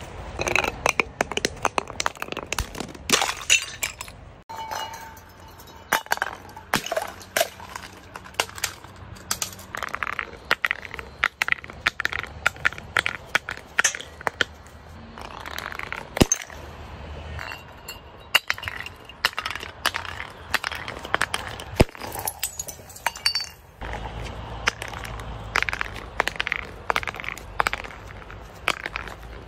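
Glass bottles knocking, clinking and cracking against concrete: a dense, irregular run of sharp hits, with a low rumble joining in near the end.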